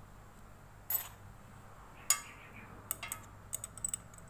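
Steel wrenches clinking against the bolts and nut of a scooter's magneto flywheel as a small combination wrench is fitted: a sharp clink about a second in, a louder one about two seconds in, then a quick run of light metal ticks.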